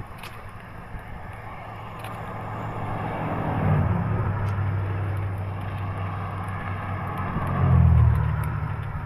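Motor vehicles passing by, their engine and tyre noise swelling to a peak about four seconds in and again, louder, near eight seconds, over a steady rushing background.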